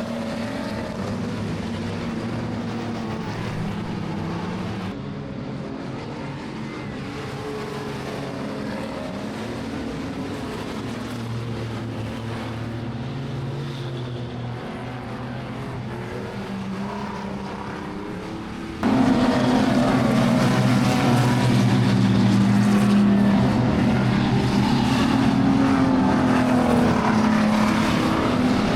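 Speedway race car engines running and revving, with several engine notes rising and falling as cars circle the track. About two-thirds of the way through, the engine sound becomes abruptly much louder.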